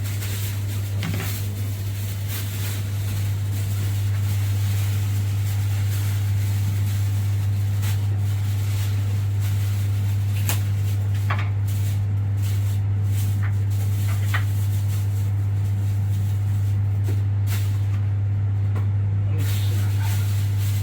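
A steady low electrical hum, with a few light clicks and taps scattered through it.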